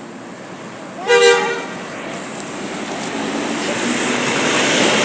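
A bus's 'telolet basuri' musical air horn sounds one short blast about a second in. After it, the bus's running noise grows steadily louder.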